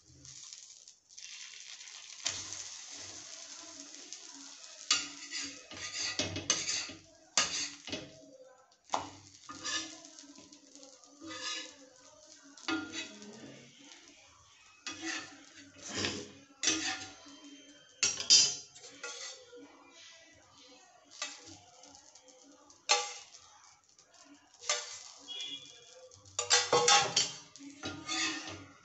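Metal spatula scraping and tapping on a flat iron griddle (tawa) as a bread omelette is pressed and turned, with the egg frying in a light sizzle. The sizzle is steadiest in the first few seconds. After that come irregular sharp scrapes and clicks every second or two.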